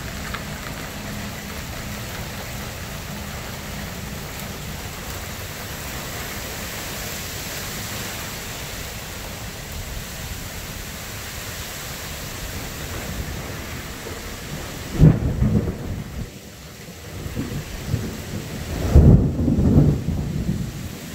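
Steady rain falling during a thunderstorm. Thunder booms loudly about fifteen seconds in, then a longer, louder roll of thunder comes near the end.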